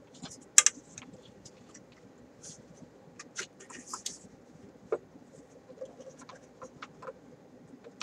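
Hands handling wires and small parts: scattered light clicks, taps and scratching. There is a sharp double click about half a second in and a brief rustle near four seconds.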